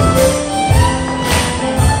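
Live contra dance band playing a fiddle tune: fiddle over keyboard and percussion, with a steady beat.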